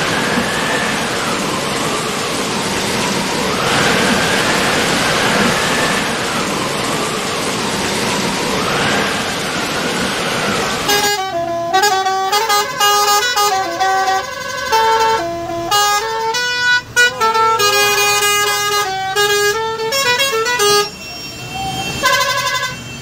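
Steady rain and road noise, with a faint wail that rises and falls about every four seconds. About halfway through, a goods truck's multi-tone musical horn starts up and plays a stepping tune of loud notes for most of the rest, with short breaks.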